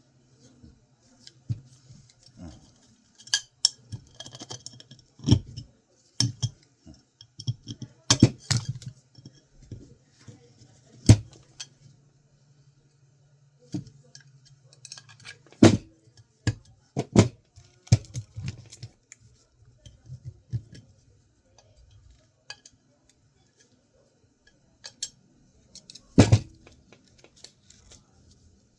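Small metal and plastic computer parts clinking, clicking and clattering at irregular intervals as electronics are taken apart by hand, with a low steady hum under roughly the first half.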